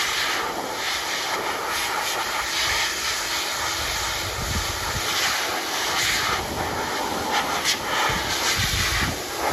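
Air Force high-velocity dog dryer blowing through its nozzle: a steady, loud rush of air, with gusty low rumbles about halfway through and near the end.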